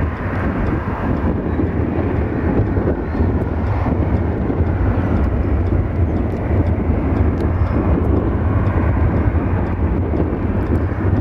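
Twin-engine jet airliner's engines rumbling steadily as it rolls down the runway after landing, spoilers up. Strong wind buffeting the microphone is heavily mixed in.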